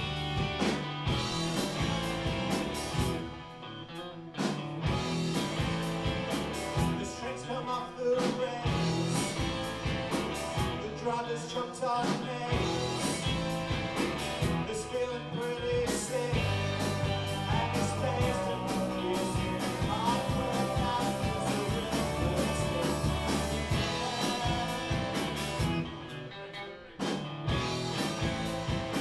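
Live rock band playing: electric guitars over a drum kit, with a man singing in places. The band briefly drops back about three seconds in and again near the end.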